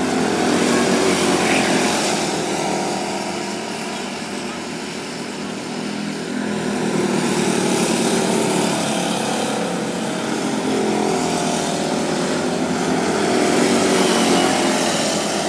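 Engines of several micro-D race cars running at racing speed, their pitch shifting up and down as the cars lap a small oval. The sound swells as cars go by, about a second in, midway and near the end.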